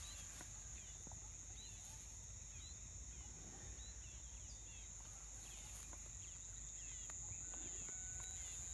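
Quiet rural ambience: a steady high-pitched insect drone with many short bird chirps scattered through it, over a low rumble of wind on the microphone.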